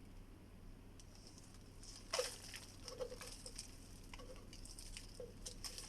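Handling clicks and rattles of plastic parts as a piece is detached from a Bissell Featherweight stick vacuum, with one sharp click about two seconds in and several lighter clicks after it.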